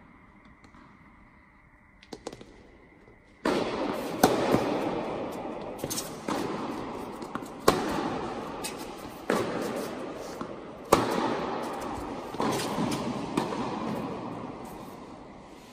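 Tennis balls struck by rackets in a rally, starting about three and a half seconds in: sharp pops about every second and a half, alternating louder and fainter hits, echoing heavily in a large indoor tennis hall.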